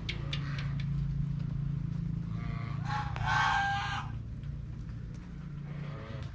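A farm animal's call, one pitched cry lasting about a second and a half near the middle, over light drizzling rain and a steady low hum.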